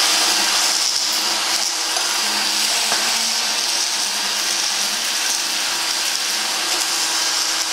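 Power drill running steadily with a 60-grit sanding pad grinding inlaid crushed stone level with the surface of a camphor laurel bowl: a steady motor whine under a gritty hiss.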